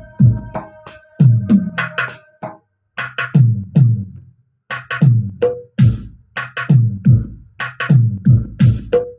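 Electronic drum sounds from a Roland SPD-20 Pro percussion pad played in a steady beat: deep booming hits that drop in pitch, with crisp cymbal and snare hits over them. The beat breaks off about two and a half seconds in for about two seconds, then picks up again.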